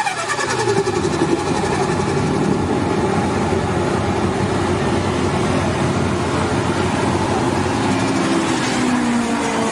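Forced-induction car engine coming off the revs: a high whine falls steeply in pitch at the start, then the engine runs on with a steady drone. A new rising note comes in near the end.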